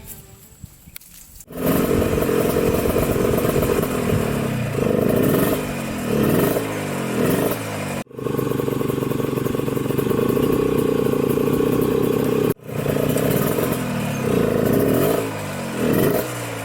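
Dirt bike engine running hard, its pitch falling and climbing again over and over as the rider shifts and works the throttle. It comes in loudly about a second and a half in, with two sudden breaks about eight and twelve and a half seconds in.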